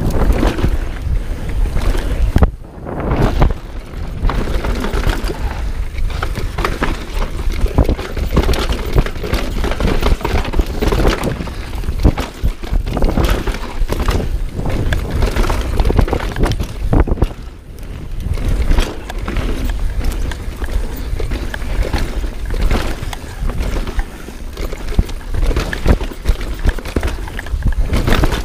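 Wind rushing over the helmet-camera microphone, with the rattle and knocking of a Knolly mountain bike descending a rough dirt-and-rock trail at speed: tyres on loose gravel, and chain and parts clattering over bumps. The noise drops briefly twice, about three seconds in and again around seventeen seconds.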